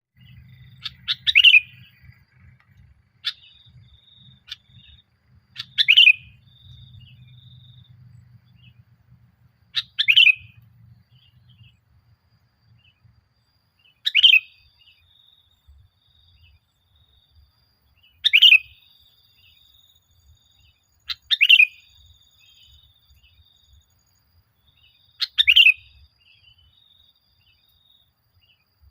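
Male sooty-headed bulbul singing: short, loud chirping phrases repeated about every four seconds.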